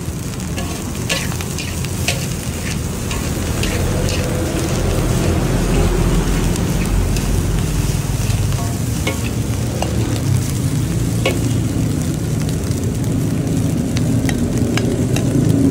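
Fried rice being stir-fried in a large steel wok: a metal spatula scraping and clanking against the pan in irregular sharp strikes, over the steady sizzle of frying and a low rumble.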